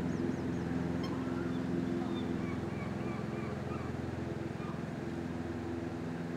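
A steady low motor hum with faint, high, brief bird chirps and peeps over it.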